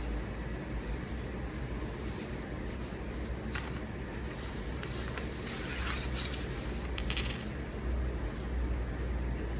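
Paper handling and pen scratching while a form is filled in: a few short clicks and a scratchy rustle around the middle, over a steady low background rumble.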